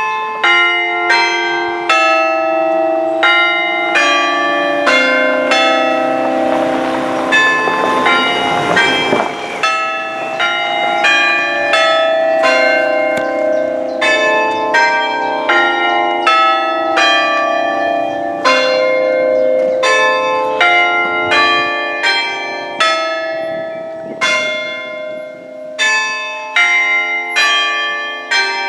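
Church bells chimed by hand on an Ellacombe apparatus: hammers strike six bells in turn at about two strokes a second, and each note rings on under the next. Only six of the eight bells sound because two are broken. There is a short lull near the end before the strokes pick up again.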